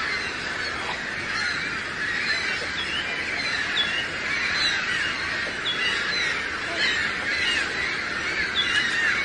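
A large flock of birds calling all at once: a dense, unbroken chorus of many overlapping short calls.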